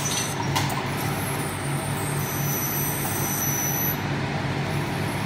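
Steady hum and running noise of glass-engraving workshop machinery, with a faint high whine that joins about two seconds in. A light click about half a second in.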